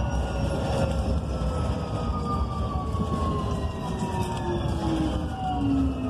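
Electric whine from a BYD K9M battery-electric bus's twin TYC-150A traction motors. Several tones fall slowly and steadily in pitch as the bus slows, over a constant low rumble of road noise.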